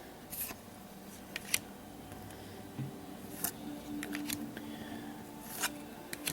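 Trading cards from a freshly opened Panini Prizm basketball pack being handled and flicked through: a few short, soft clicks and rustles of card stock, with a faint steady hum coming in about halfway.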